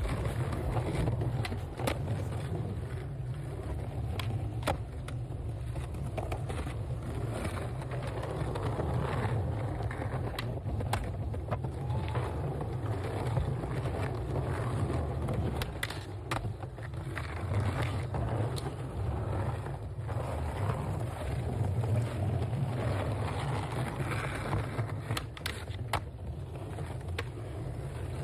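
Skateboard wheels rolling over smooth plaza stone, a steady low rumble, with sharp clacks of tail pops, board slaps and landings scattered throughout.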